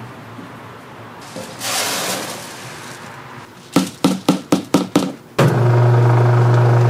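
A short rush of noise, then six quick knocks about four a second, and then an electric rice-grinding mill switches on and runs with a steady low hum, ready to grind rice into flour for dough.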